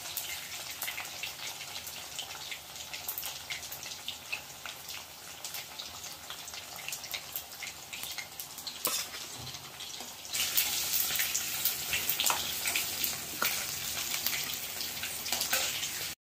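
Marinated koduva (Asian sea bass) pieces deep-frying in hot oil in a steel kadai: a steady bubbling sizzle with fine crackles, which gets louder about two-thirds of the way through.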